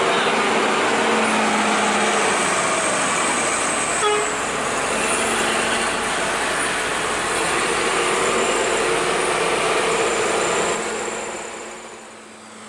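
Intercity bus's diesel engine running hard as it climbs a steep hairpin bend, loud and steady, fading away near the end.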